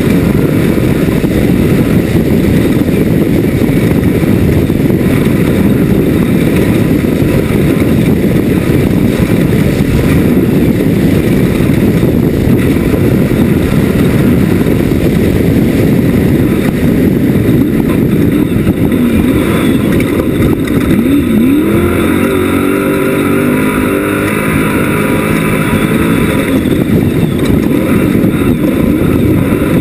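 Class 1 off-road race buggy's engine running hard at racing speed, loud and continuous, with the revs dipping and climbing again about two-thirds of the way through.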